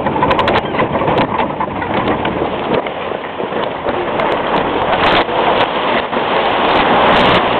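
Land Rover Series III heard from on board, driving a rough rocky track: a steady rumble of engine and road noise, with repeated knocks and rattles as the body jolts over the rocks. Near the end it grows louder as the front wheels splash through a shallow stream.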